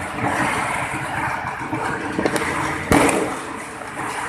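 A pop-pop snapper, a small paper-wrapped firecracker, goes off with one sharp snap about three seconds in. Steady rushing background noise runs underneath.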